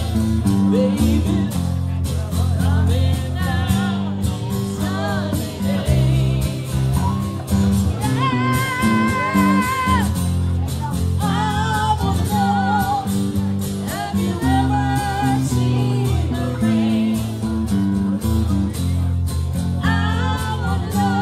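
Live rock band playing an instrumental passage: electric bass and guitars over drums. A lead line plays wavering held notes on top, several times.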